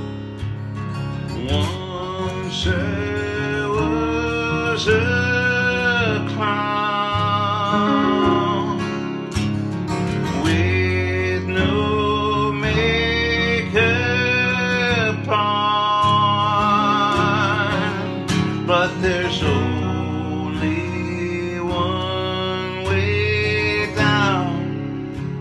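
A man singing a country-flavoured pop song over acoustic guitar, his voice coming in about a second and a half in with held notes that waver in vibrato.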